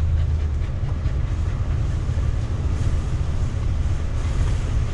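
1990 Fleetwood Bounder Class A motorhome driving, its engine and road noise a steady low rumble heard from inside the cab, with wind noise over it.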